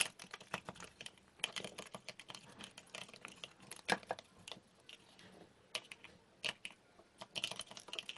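Irregular light clicks and taps from stirring a jelly monster and soothing gel mixture with water in a container.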